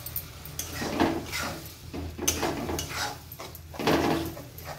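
A spatula stirring and scraping through thick tomato purée and fried masala in a kadai: a run of wet scrapes and knocks, about two a second.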